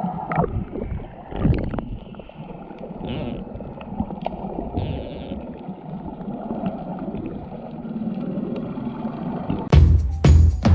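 A boat under way: a low, rough rumble with rushing water noise and occasional knocks. Drum-led music starts near the end.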